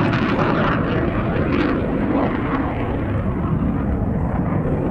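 Jet noise from Blue Angels F/A-18 jets passing overhead: a loud, dense rushing sound whose high end fades over the last couple of seconds as they move away.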